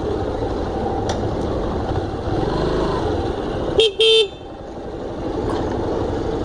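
Yamaha Factor motorcycle's single-cylinder engine running at low speed, with two short toots of the horn about four seconds in, the second a little longer.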